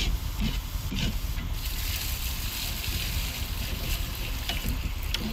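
Outdoor pot cooking: a steady hiss over a low rumble, with a few light clicks.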